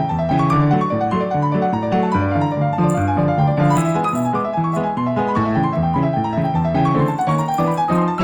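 Background piano music, a quick run of notes with a steady beat.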